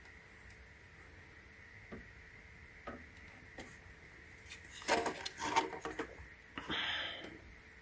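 Light clicks, then a brief burst of clattering and rubbing from small tools and parts being handled on a workbench during motherboard capacitor work, ending in a short hiss.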